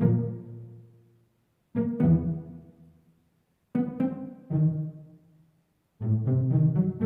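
Short bursts of low-pitched instrumental music, each a quick run of notes that starts sharply and dies away into silence, repeating about every two seconds.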